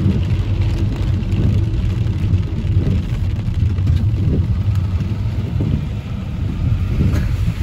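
Steady low rumble inside a car's cabin while driving in heavy rain: engine and tyres on a wet road.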